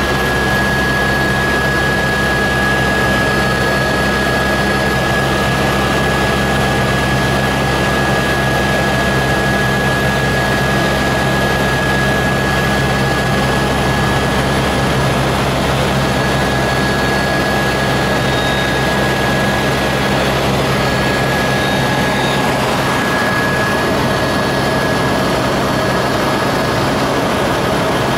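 Eurocopter AS350B Ecureuil helicopter in steady cruise, heard from inside its cabin: unbroken engine and rotor noise, a steady high tone over a low hum.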